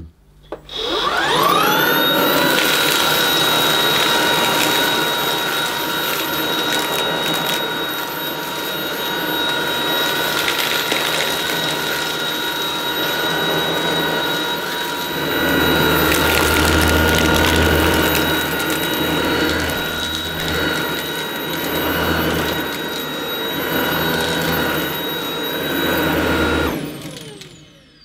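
Shark DuoClean cordless stick vacuum (Ion Flex) starting with a rising whine about a second in, then running steadily with a high-pitched whine as it is pushed over carpet, sucking up spilled grit and debris. The motor winds down with a falling whine near the end.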